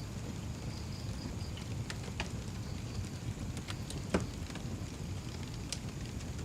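Wood fire crackling: scattered sharp pops over a low steady rumble, the loudest pop about four seconds in.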